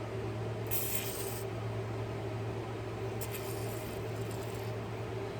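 Rem Oil being applied to a folding knife: a short hiss of spray about a second in, then softer rubbing and wiping for a second or so around the middle, over a steady low hum.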